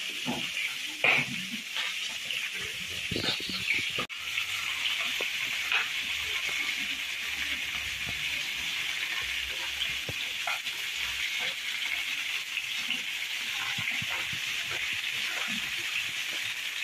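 Vegetables frying in hot oil in a wok: a steady sizzle, with a few knocks of chopsticks against the plate in the first few seconds as the vegetables are pushed in.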